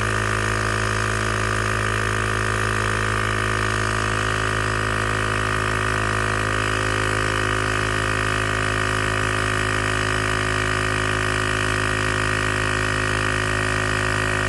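Ozito 12V 150 PSI portable air compressor running steadily as it inflates a car tyre toward a preset 50 psi, a loud, even buzzing drone.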